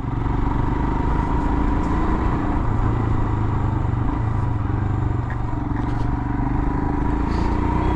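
Royal Enfield Himalayan's single-cylinder engine running steadily while cruising at about 60 km/h, heard through a helmet-mounted GoPro.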